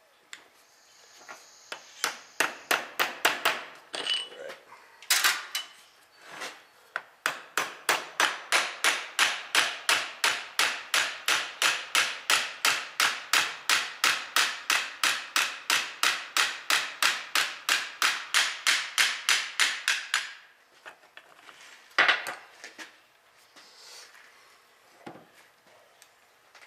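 Claw hammer tapping on the metal of an Allis-Chalmers power director clutch assembly: a few irregular blows first, then a long, even run of about three sharp blows a second. This is followed by one harder blow near the end.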